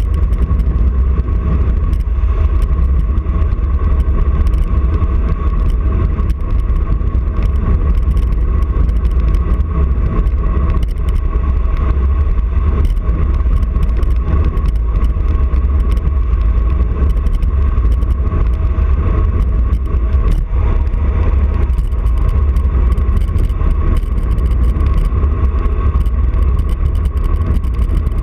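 Wind rushing over the microphone of a handlebar-mounted camera on a fast road-bike descent, a steady low roar. A steady high whine sits underneath.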